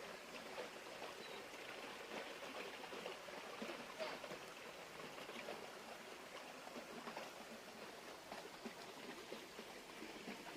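Faint steady rush of a woodland stream, with a few light scattered ticks.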